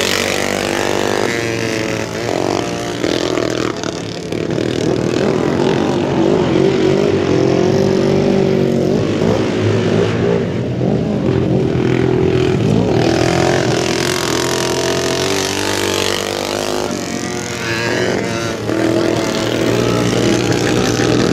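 Several flat-track racing motorcycles running around a dirt oval, their engines revving up and down and overlapping as they go through the turns and pass by.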